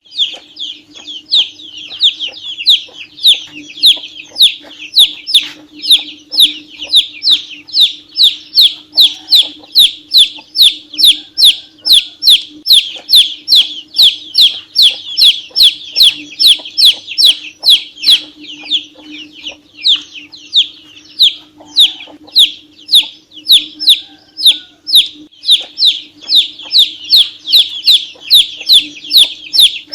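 Domestic chicken chick peeping loudly and without pause: a rapid, even string of high, falling peeps, about two or three a second, over a faint steady hum.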